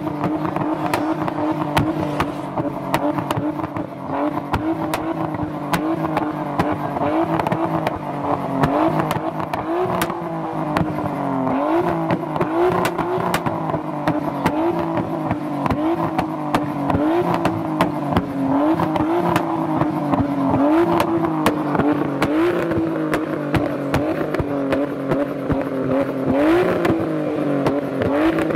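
Nissan Skyline R33's straight-six engine running, blipped on the throttle again and again so that the pitch jumps up and sinks slowly back about every second and a half, with exhaust pops and crackles. A harder rev near the end comes with the exhaust spitting flame.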